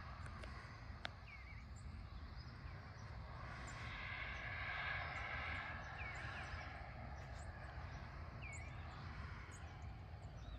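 Early-morning countryside ambience: a steady low rumble and hiss that swells around the middle, with a short bird call repeated every two to three seconds and faint high chips.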